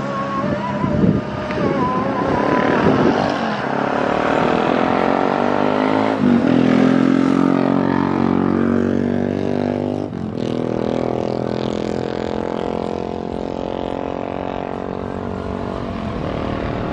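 Twin CFM56-3 turbofan engines of a Boeing 737-500 airliner at takeoff power on the runway: a loud buzzing drone that climbs in pitch over the first several seconds, then holds steady.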